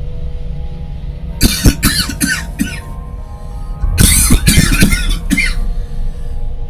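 A man coughing in two bouts: a run of several sharp coughs about a second and a half in, then a second, louder run of coughs about four seconds in.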